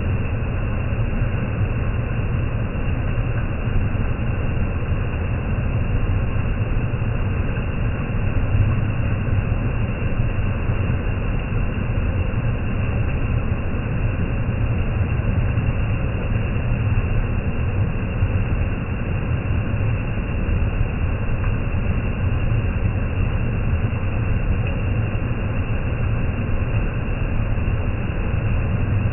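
Waterfall in heavy rainy-season flow: a steady, even rush of falling water with a strong low rumble.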